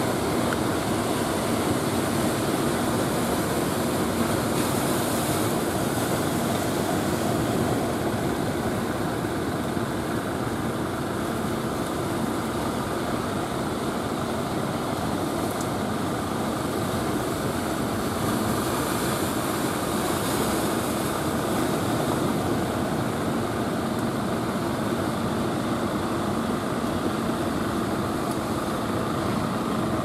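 Motorised wooden fishing boat's engine running steadily as it crosses the surf, over the wash of breaking waves.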